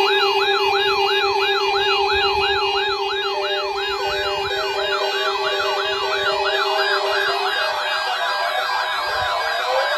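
Electronic siren-type alert tone: a rapid yelp rising and falling about twice a second, over a steady low tone. The low tone drops out about seven and a half seconds in, and more overlapping sweeps come in toward the end.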